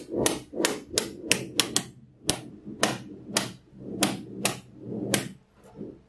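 Small cubes of magnetic balls snapping together one after another, about fifteen sharp clicks at an uneven pace of two or three a second, stopping shortly before the end.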